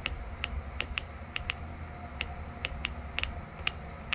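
Sharp spark snaps at uneven intervals, about three a second, from an outboard ignition test rig: a known-good Mercury switch box and coil firing across a spark tester, showing the switch box and coil make spark.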